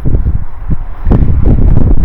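Wind buffeting the microphone in heavy low rumbles, with a few sharp knocks about a second in and near the end.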